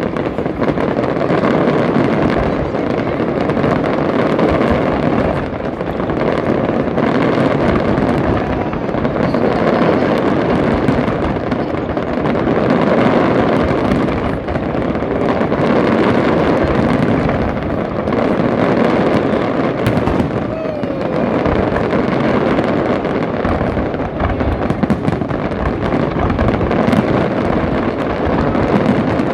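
Fireworks display: a dense, continuous barrage of shell bursts and crackle with no pauses.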